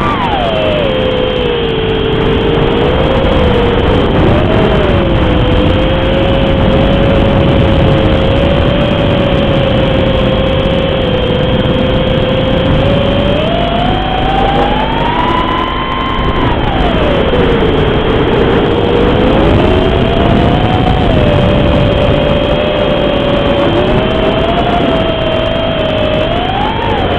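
Racing quadcopter's Cobra 2204 2300kv brushless motors spinning Dalprop 5040 three-blade props in flight. The whine drops sharply at the start, holds steady for about ten seconds, then climbs and falls with the throttle several times, over a heavy rushing noise.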